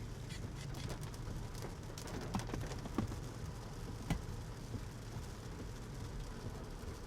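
Heavy rain pattering on a moving car's roof and windshield, heard inside the cabin over a steady low road rumble, with a few sharper drop hits about halfway through.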